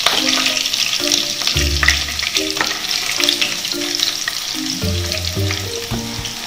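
Chopped garlic sizzling and crackling in hot oil in a non-stick kadai, with a wooden spatula stirring it. Soft background music with a stepping bass line runs underneath.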